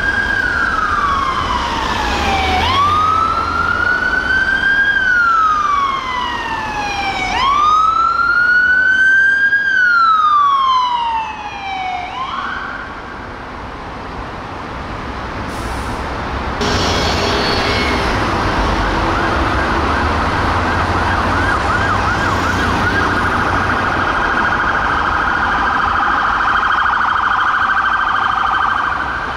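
Ambulance siren sounding a slow wail, rising and falling three times, then after a short quieter spell switching to a fast yelp that warbles rapidly for the rest of the time, over low engine and traffic rumble.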